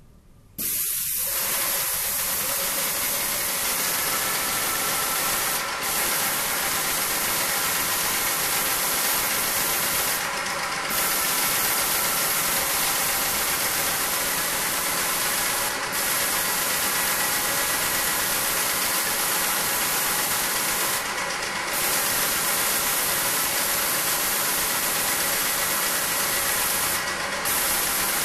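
Sprayer on a pole-extension gun spraying the ceiling: a steady loud hiss of spray over a motor hum, starting about half a second in. The hiss briefly dips roughly every five seconds.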